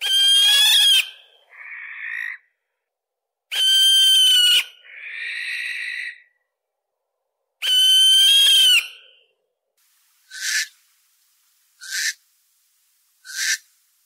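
Common barn owl (Tyto alba) calling: three long screeches about four seconds apart, the first two each followed by a softer, noisier call. These are followed by three short, sharp calls about a second and a half apart.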